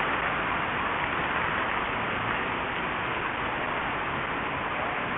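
Steady traffic noise from a busy city avenue: an even hiss of cars passing, with no single event standing out.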